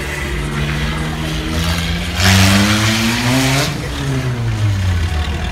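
Backhoe loader's diesel engine running, then revving up hard about two seconds in, its pitch rising for a second and a half before it drops back.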